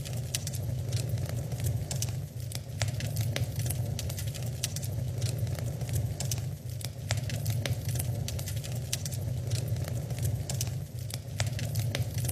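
Wood fire crackling in a fireplace: frequent, irregular sharp pops and snaps over a steady low rumble.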